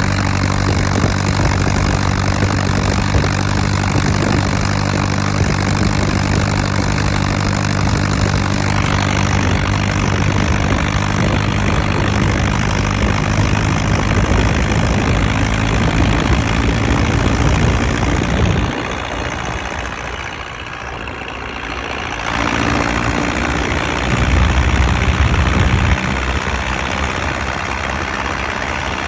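Lovol M504 tractor's diesel engine running steadily. It becomes quieter and thinner in the low end for a few seconds about two-thirds of the way through, then comes back, briefly louder.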